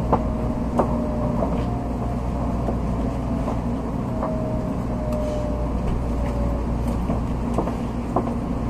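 Cabin noise of an N700-series Shinkansen train slowing into a station: a steady low rumble with a faint whine that slowly falls in pitch, and scattered clicks as the wheels cross points.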